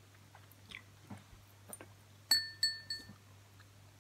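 Three quick ringing clinks about halfway through, each a sharp tap followed by a short bright ring, like a hard object struck against glass or metal. Faint soft clicks come before them.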